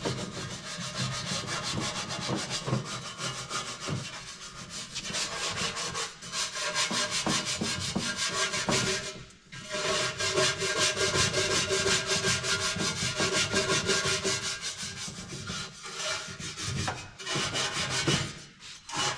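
Nylon brush scrubbing a rusty steel valve cover in quick back-and-forth strokes, with a short break about halfway through. The brushing strips off the remaining paint and rust that electrolysis has loosened.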